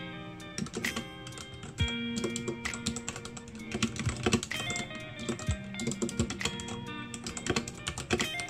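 Fast typing on a Meewoo wireless keyboard: a quick, irregular run of key clacks, over background music with guitar.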